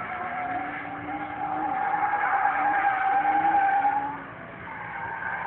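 Drift car sliding through a corner: engine held at high revs with tyres squealing. It grows louder through the middle, drops off about four seconds in, then builds again near the end.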